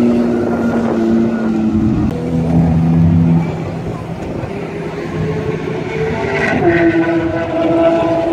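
Several sports cars, among them a Ferrari 458, driving slowly past one after another with their engines running at low revs. The engine note shifts twice, and a stronger engine note comes in about six and a half seconds in.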